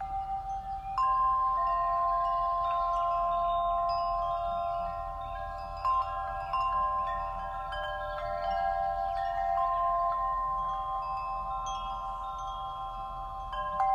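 Chimes ringing: several long, overlapping tones at different pitches, with fresh strikes about a second in, twice around six seconds, and again near the end.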